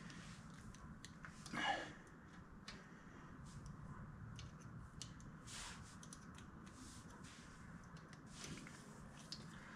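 Faint small metal clicks and scrapes of needle-nose pliers fitting and bending a cotter pin through the spindle nut of a front wheel hub, with one louder scrape about one and a half seconds in.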